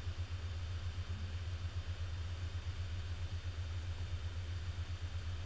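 A steady low hum with no other sound standing out.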